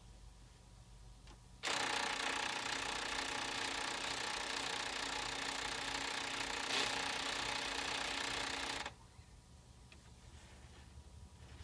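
PlayStation 3 disc drive making a weird grinding noise as a disc is inserted. The grinding is loud and steady for about seven seconds, starting and stopping abruptly, after a few faint clicks.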